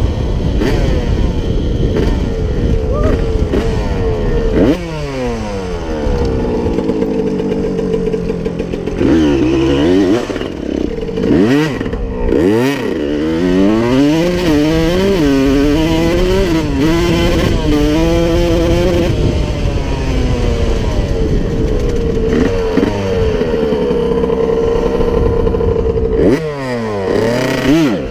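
1992 Honda CR125's 125cc single-cylinder two-stroke engine being ridden hard. The revs rise and fall over and over as the throttle is opened and shut, with sudden drops in pitch between the climbs.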